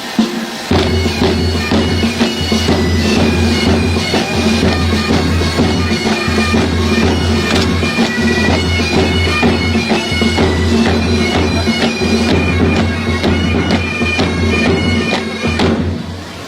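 Bagpipes playing a tune over their steady drones. The pipes strike in just under a second in and stop near the end.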